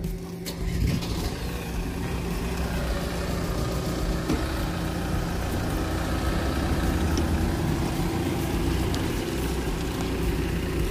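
Ford Transit minibus engine idling steadily at the kerb.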